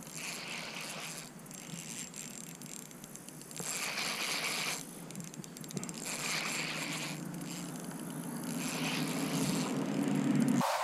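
Spinning fishing reel being cranked in three short spurts of about a second each, a rattling whirr. A low rumble grows louder toward the end and cuts off abruptly.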